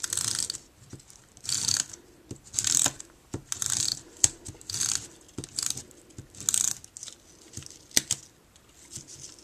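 Tombow tape runner drawn repeatedly across the back of a paper circle, each pass a short rasp of adhesive tape unrolling onto the paper, about once a second, with small clicks of the dispenser in between.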